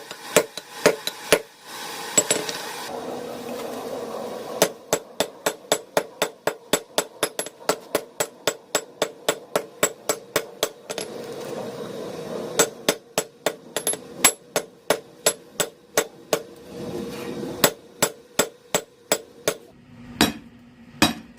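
Blacksmith's hammer striking steel rebar on an anvil in runs of quick blows, about three a second, with short pauses between runs. The stock is being drawn out and thinned, worked half on, half off the anvil.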